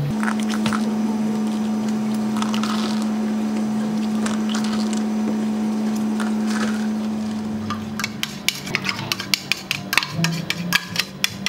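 A steady low electric hum with scattered light clinks of dishes and utensils during café food prep. After about eight seconds the hum drops away and quick, irregular tapping and clicking takes over.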